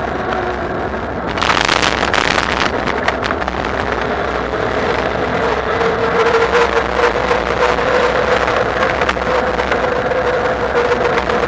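Bafang BBSHD mid-drive e-bike motor running with a steady whine that rises a little in pitch a few seconds in, as the bike speeds up. A rush of wind and road noise comes in sharply about a second in and stays.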